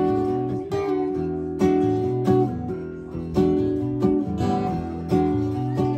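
Acoustic guitar strummed in a steady rhythm: chords struck about once a second and left ringing, with no singing.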